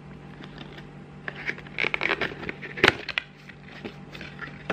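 White cardboard watch box being handled and opened by hand: soft scraping and rustling of the board with scattered small clicks, and one sharp snap about three seconds in.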